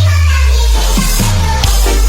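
Electronic dance music with very heavy bass played loud through a big sound-battle rig during a sound check. In this stretch the drum hits drop out, leaving a long held bass note and a hissing sweep that swells about halfway through.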